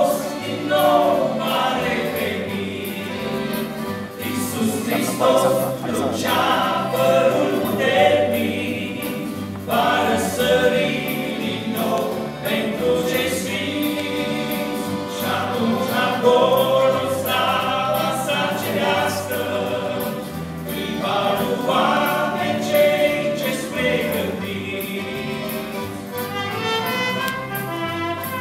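Live gospel band playing a song, with accordion, guitars and bass guitar; a trumpet is raised to play near the end.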